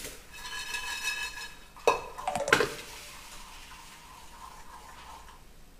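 Metal cookware clinking: a struck pot rings and fades over the first couple of seconds, then a metal spoon gives three sharp clinks against a pan about two seconds in. After that comes quiet stirring of jaggery syrup in a small kadai.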